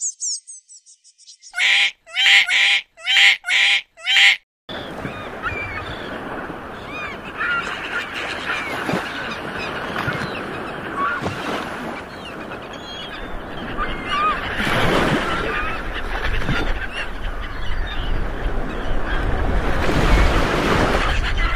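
Rapid high-pitched bird chirping, then five loud calls from a large bird, each bending in pitch. After that, a dense chorus of many birds calling at once over a steady low rumble.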